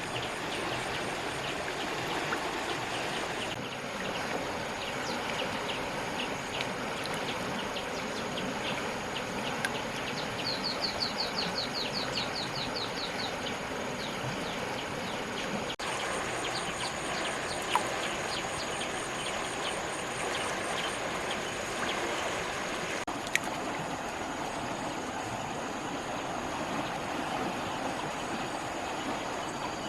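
Steady rush of flowing water with birds chirping over it, including a quick run of a dozen or so short high notes about a third of the way through.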